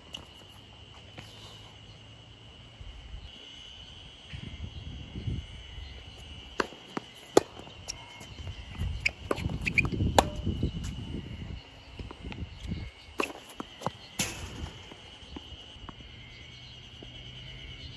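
Tennis rally on a hard court: sharp pops of racket strings striking the ball, several of them a second or so apart from about six to fifteen seconds in, with players' footsteps on the court. A steady high-pitched drone runs underneath.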